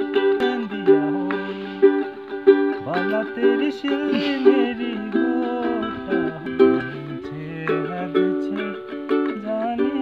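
Ukulele being strummed and picked, a repeating chord pattern with plucked strokes at an even pace.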